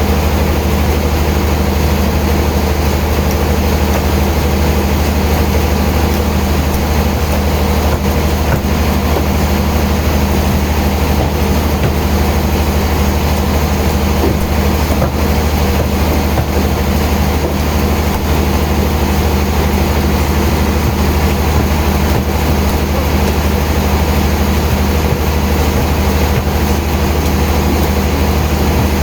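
Heavy sawmill machinery running steadily: a loud, constant low drone that holds unchanged throughout.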